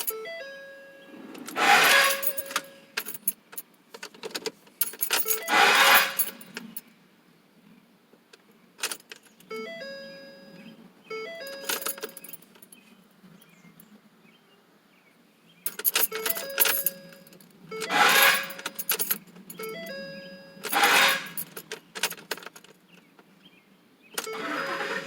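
The starter of a 2012 Ford Super Duty's 6.2L gas V8 grinding against the flexplate in short harsh bursts, about six times, as the key is turned; the pinion is not meshing cleanly, even with a new starter, battery and flywheel fitted. A repeating dashboard chime sounds between the attempts.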